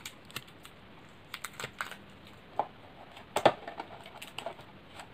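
Irregular small clicks and taps of hands pressing sellotape and handling a milk-bottle elephant craft, with the loudest knock about three and a half seconds in.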